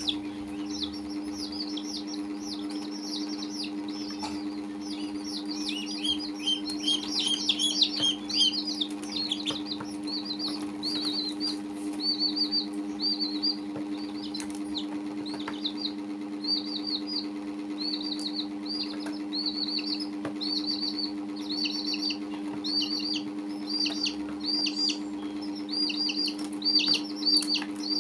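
Baby chicks peeping in short, high chirps, a couple a second, with several calling over one another for a few seconds about a quarter of the way in. A steady low hum runs underneath.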